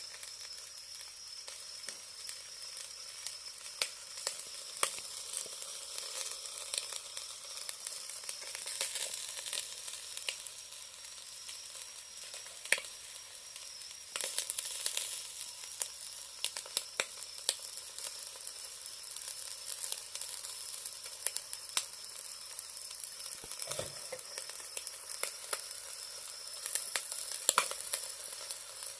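Chicken thigh sizzling on a charcoal shichirin grill, a steady hiss with frequent sharp pops and crackles of spitting fat. A soft low knock comes late on.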